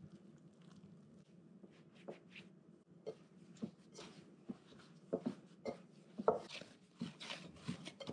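Flour and water being worked into bread dough in a mixing bowl, first with a spatula and then by hand: faint scrapes, then soft irregular squishes, slaps and knocks against the bowl, louder and more frequent from about halfway through.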